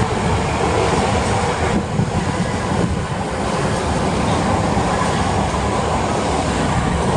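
Osaka subway 30000-series train departing from an underground station platform, its wheels and running gear passing close by in a steady, continuous rumble as the train speeds up. The last car goes by near the end.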